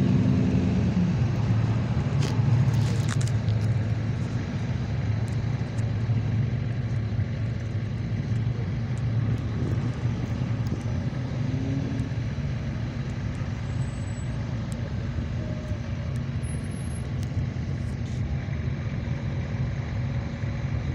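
A line of cars driving past one after another, their engines running steadily. The loudest engine rumble fades away about a second in.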